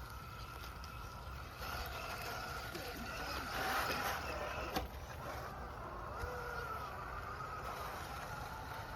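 Electric motor of an RC rock crawler whining as it drives, its pitch rising and falling with the throttle, over low wind rumble on the microphone. One sharp click comes a little under five seconds in.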